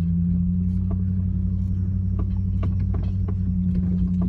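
2000 Jeep Grand Cherokee with its V8 driving over a bumpy road: a steady low engine and road drone, with scattered light clicks and knocks from the bumps.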